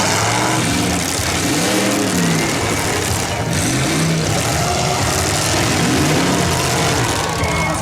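Demolition-derby car engines revving hard, their pitch rising and falling again and again over one another.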